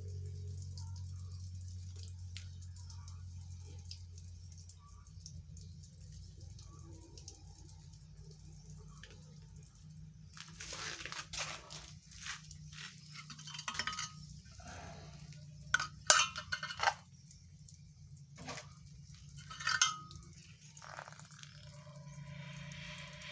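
Water dripping and splashing in a sink, with scattered clinks and knocks of kitchenware over a steady low hum, the sharpest clatters about two-thirds of the way in.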